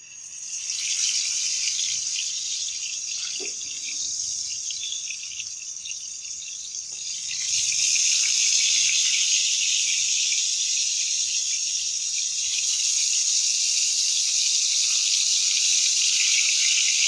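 Whole climbing perch sizzling in hot oil in a frying pan as they are laid in one by one. The sizzle starts suddenly and grows louder about seven and a half seconds in as more fish go into the pan.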